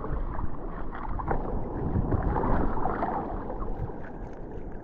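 Water sloshing and splashing around a surfboard as it is paddled by hand, with wind on the microphone.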